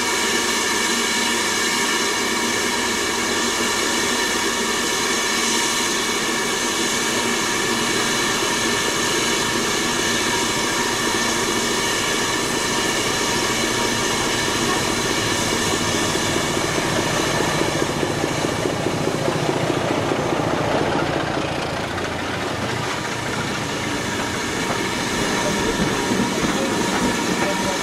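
A steady hiss of steam from a standing steam locomotive runs throughout. A diesel-hauled passenger train approaches on the adjacent track: its engine rumble builds from about two-thirds of the way in. Near the end the coaches rattle past close by.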